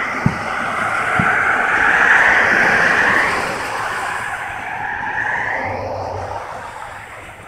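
Road traffic passing close by, the tyre and engine noise swelling to a peak about two seconds in, rising again more weakly after five seconds, then fading. Two dull booms of distant fireworks come in the first second or so.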